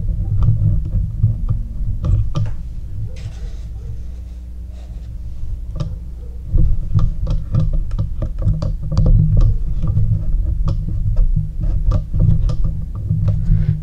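Handling noise: scattered light clicks and taps over a steady low rumble, as small lock parts are moved about on a table.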